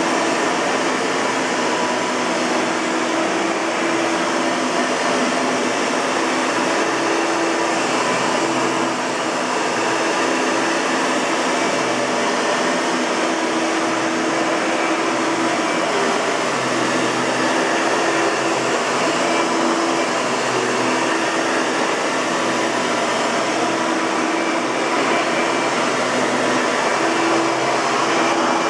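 A 1997 Hoover TurboPower 4000 Elite upright vacuum cleaner running steadily, its motor humming under a constant rush of air.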